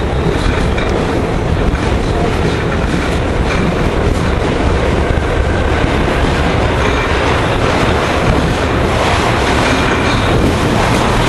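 St. Louis-built R-44 subway car running along the track, heard from on board: a steady rumble of wheels and running gear with clicking over rail joints and brief, faint high squeals from the wheels.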